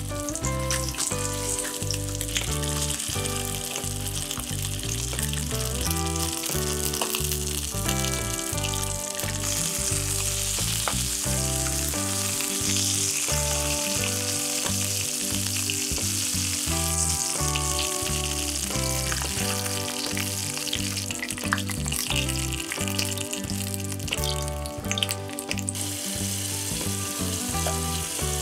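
Pork belly chunks sizzling in hot oil in a frying pan, a steady high hiss, under background music with a moving bass line.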